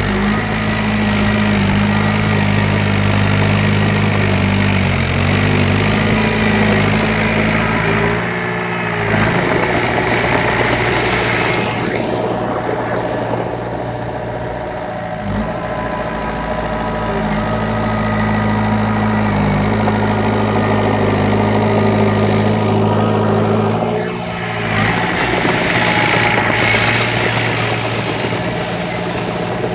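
Diesel engine of heavy earthmoving equipment running steadily and loud, its note shifting and briefly dropping about eight seconds in and again near the twenty-four-second mark as the load changes.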